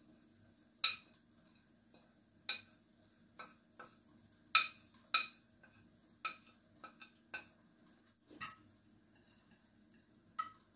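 Metal spoon clinking and tapping against a ceramic plate and bowl as spices are scraped off into a bowl of yogurt: about a dozen separate sharp clinks, each with a short ring, at an uneven pace.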